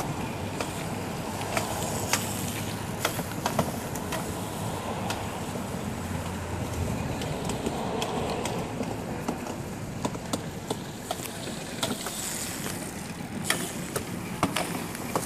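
Razor MX350 and MX650 electric dirt bikes riding over grass and dirt: a steady noisy whir from their electric motors, chain drives and tyres, with many sharp clicks and knocks scattered throughout.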